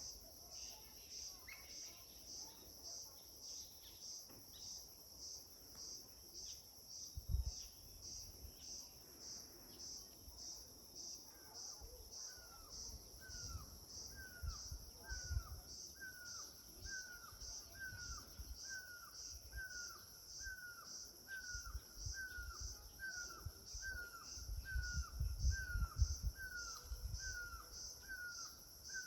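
Outdoor nature ambience: insects chirping in a steady, even pulse, joined about a third of the way in by a bird repeating a short falling call roughly once a second. Irregular low rumbles come and go, strongest about a quarter of the way in and near the end.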